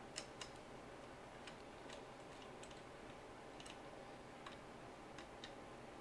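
Faint, scattered light clicks and ticks, about a dozen spread irregularly over a few seconds, over quiet room tone with a low steady hum.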